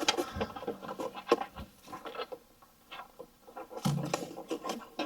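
Plastic engine air box parts being handled and pushed into place: a run of light clicks, taps and scrapes, the sharpest about a second in.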